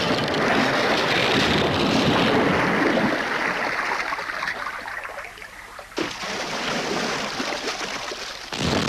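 Cartoon sound effect of a big splash and rushing water as the lake monster plunges into the lake. It fades over several seconds, and another rush of water starts suddenly about six seconds in.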